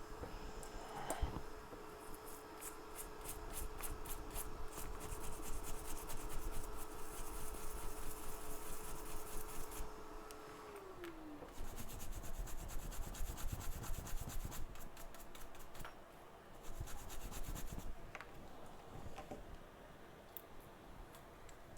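Rapid scraping or rubbing strokes in runs of several a second. Under them, a steady hum from a hot-air rework station falls in pitch and dies away about halfway through, as its fan winds down after the reflow.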